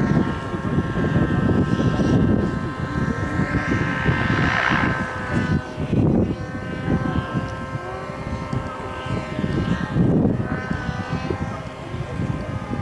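High-revving engines of radio-controlled model airplanes flying overhead: a steady, high-pitched drone of several tones that waver slightly in pitch as the models turn and pass. Low, irregular rumbling runs underneath.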